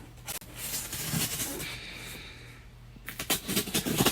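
Scissors cutting open a cardboard shipping box: scraping and rustling of the blades through packing tape and cardboard, then a quick run of crackling clicks in the last second.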